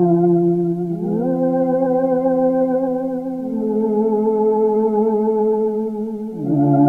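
Dreadbox Abyss four-voice analog polysynth playing slow, sustained chords. The notes glide into a new chord about a second in and again near the end, and the upper tones waver slightly.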